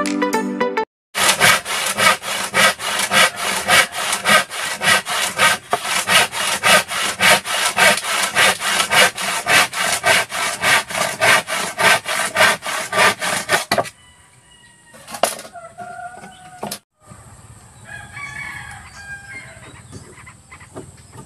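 Handsaw cutting through a wooden board in quick, even strokes, which stop about two-thirds of the way through. A rooster crows near the end.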